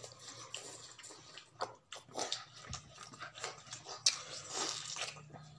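People biting into and chewing juicy watermelon slices: an irregular run of wet crunches, smacks and slurps.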